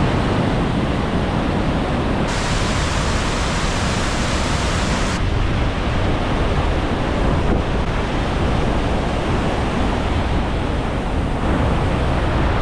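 A large waterfall heard up close: a loud, steady roar of rushing, crashing water. Its upper hiss brightens for a few seconds near the start.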